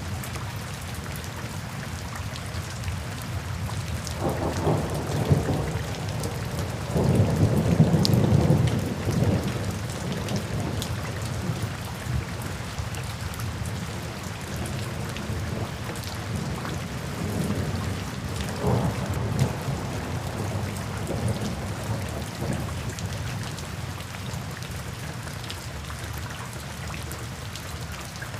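Steady rain falling, with low thunder rumbling in about four seconds in, loudest around eight seconds, then trailing off into smaller rumbles.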